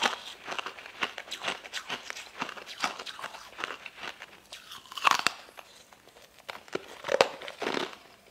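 Close-miked biting and chewing of sugar-coated, starfish-shaped jelly candies: a run of short chewy, crunchy clicks, with louder bites about five seconds in and again about seven seconds in.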